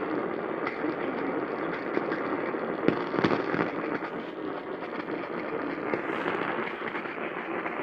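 Crackling static from an AM radio receiver: a steady hiss peppered with sharp pops, the loudest pops about three seconds in.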